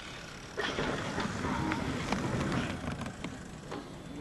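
Mountain bike touching down about half a second in, then its tyres rolling and rattling over the dirt trail for a couple of seconds before it fades.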